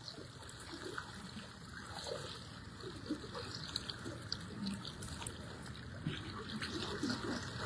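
Fast-flowing floodwater running and splashing quietly, a strong current through a flooded street.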